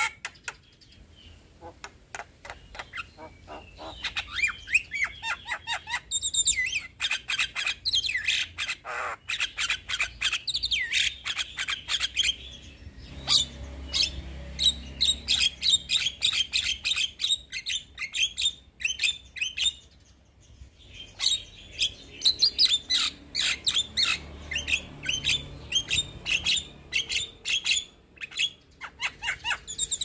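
Young Javan myna singing in a long, rapid run of chattering notes, clicks and whistled glides, some sliding steeply downward, with short breaks about twenty seconds in and near the end.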